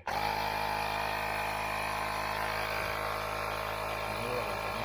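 Xiaomi portable electric air pump running steadily, pumping into a tubeless scooter tyre whose bead is not yet sealed against the rim.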